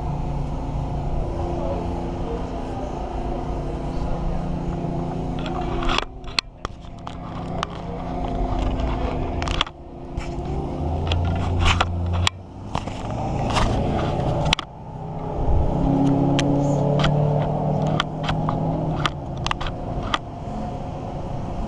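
Motor traffic on a town street: vehicle engines running with a steady low hum. From about six seconds in, a run of sharp clicks and knocks cuts in for several seconds.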